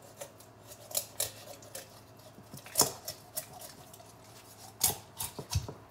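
A large kitchen knife chopping through a whole raw chicken on a wooden cutting board: a series of sharp, irregular knocks and cracks as the blade splits the carcass and strikes the board, with a dull thud near the end.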